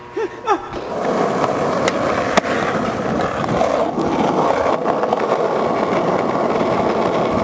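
Skateboard wheels rolling steadily over asphalt, with two sharp clicks about two seconds in.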